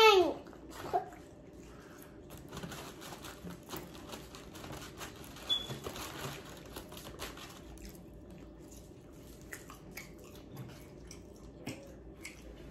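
Close-up eating sounds: wet chewing, lip smacking and saucy fingers pulling meat off chicken wings, a scatter of small wet clicks and smacks.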